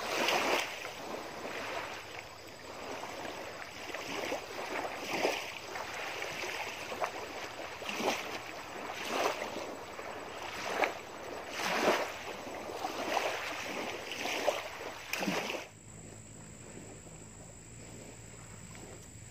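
Small lake waves lapping and splashing on a sandy shore, coming in irregular surges every second or so. About three-quarters of the way through the sound cuts off to a quieter, steady background with a faint hum.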